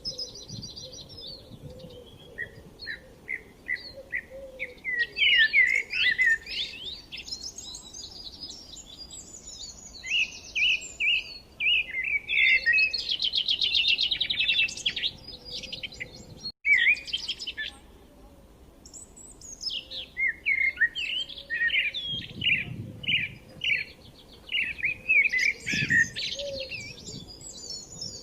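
Several songbirds in a spring woodland chorus, singing and chirping in overlapping quick phrases and trills. Near the middle the sound cuts out for a split second.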